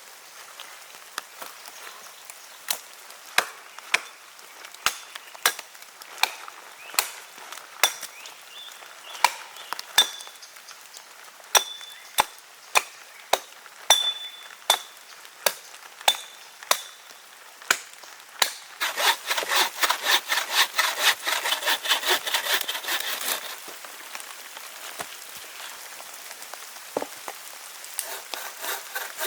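Wood being worked with hand tools: sharp, evenly spaced strikes about one and a half a second, some with a short metallic ring. Then a few seconds of quick back-and-forth sawing strokes, and a little more sawing near the end.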